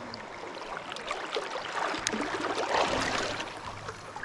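River water running over rocks, a steady splashing rush that swells briefly about three seconds in.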